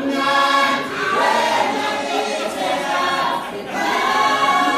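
A choir of voices singing a song, with long held notes.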